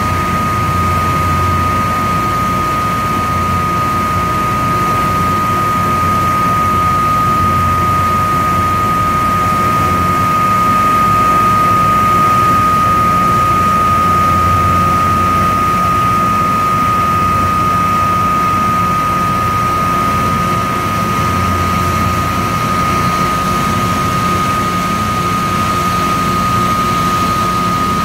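Erema RM160E plastic recycling extruder line with cutter compactor running: a steady, loud machine drone with a high steady whine over it and a low hum that swells and fades unevenly.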